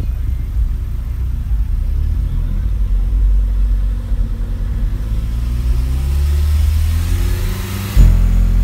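Car engine running, then revving up over a few seconds. About eight seconds in, the Saab's JL Audio W7 13-inch subwoofers start a sudden, loud, steady low bass tone: a burp played for an SPL meter reading.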